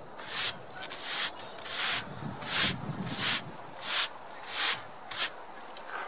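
Stiff-bristled broom sweeping sawdust off a freshly sawn pine beam: about eight brisk, evenly spaced brushing strokes, roughly one and a half a second, each a short hiss of bristles on the wood.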